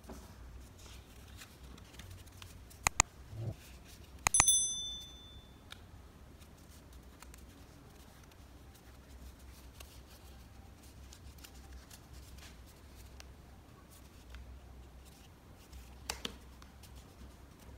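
Paper being creased and rubbed by hands in a quiet run of soft rustling. About three seconds in come two sharp clicks, then another click and a short bell ding: the click-and-chime sound effect of a subscribe-button animation.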